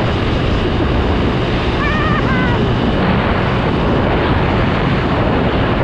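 Heavy wind noise buffeting a GoPro Hero7 Black's built-in microphone on a moving motorcycle, a steady rushing that covers the engine and road noise underneath. There is no external mic to shield it from the wind.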